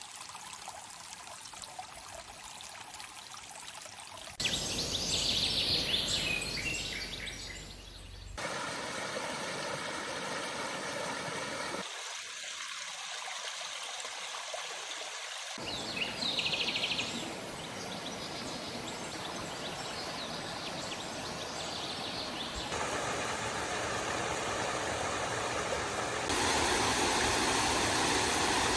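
Flowing water of a mountain stream and its small waterfalls, a steady rushing that changes abruptly in loudness and tone several times as one shot gives way to the next.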